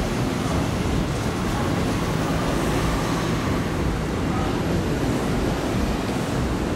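Keikyu electric commuter train running past a station platform: a steady, loud rumble of wheels on rail and running gear.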